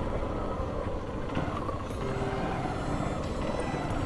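Honda CB Shine 125's single-cylinder engine running steadily as the motorcycle is ridden along a rough road, with road and wind noise.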